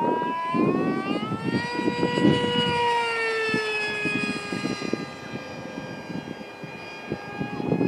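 High-revving Turnigy 2836-3700kV brushless motor and propeller of a Skyfun RC jet flying at full speed, giving a jet-like whine. The whine rises in pitch for the first couple of seconds, then falls steadily as the plane passes. It fades a few seconds in and comes back near the end.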